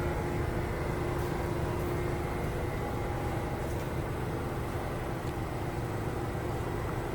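NYC subway R62A train: a steady rumble with a steady low hum running through it and a few faint ticks.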